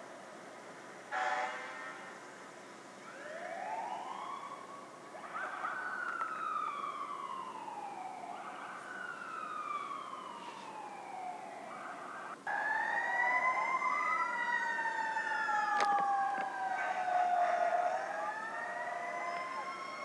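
Fire truck sirens wailing, each slowly rising and falling in pitch. About twelve seconds in, louder sirens join and several overlap. A brief blast sounds about a second in, and there is a single sharp click near the end.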